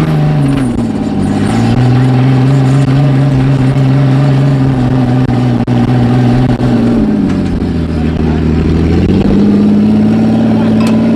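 Off-road 4x4 engine revving hard under load: the revs climb and hold high for several seconds, fall back about seven seconds in, then climb and hold again.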